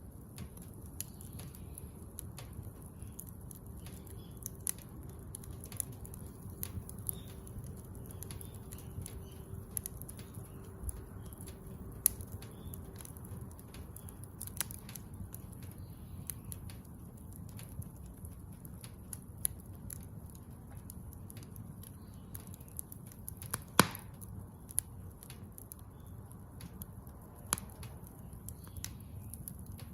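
Wood fire of scrap building lumber crackling: irregular sharp pops and snaps over a low steady rumble, with one loud pop about 24 seconds in.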